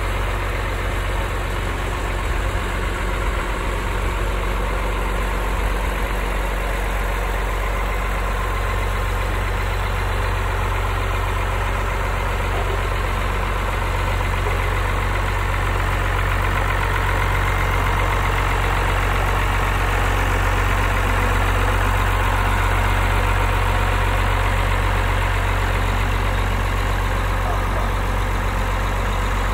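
Cockshutt 1850 tractor's Perkins 354 six-cylinder diesel engine idling steadily.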